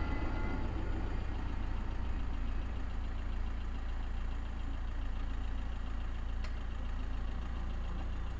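A train moving away from a level crossing, its running noise fading out during the first second, leaving a steady low rumble.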